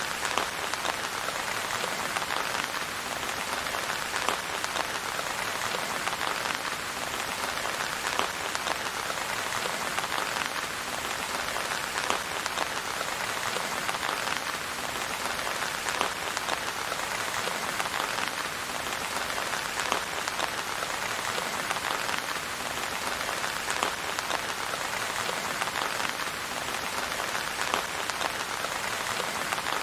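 Steady rain falling on a hard surface, a dense even patter with many individual drop ticks.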